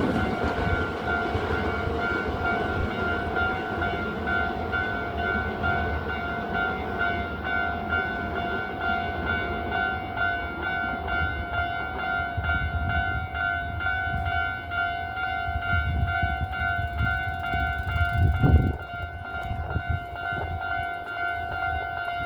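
Japanese railway level-crossing warning bell ringing with a steady, evenly pulsing clang, over the low rumble of a Hankyu train running through the crossing. The rumble swells and then drops away after a low thump near the end, while the bell keeps ringing: the crossing stays closed.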